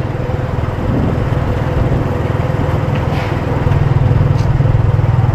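Motorbike engine running steadily as it rides along, a low pulsing rumble that grows a little louder in the second half.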